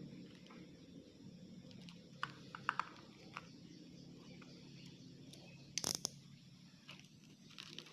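Faint low hum with a few small, scattered clicks and taps, and a short cluster of louder clicks about six seconds in.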